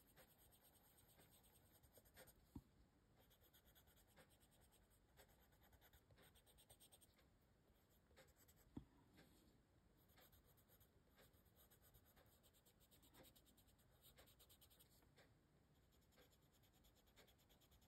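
Faint scratching of a coloured pencil shading on paper in quick, short back-and-forth strokes, with a couple of slightly louder ticks about two and a half and nine seconds in.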